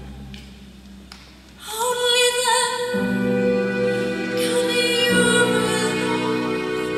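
A woman singing long held notes with instrumental accompaniment. The singing comes in about one and a half seconds in, after a quiet start.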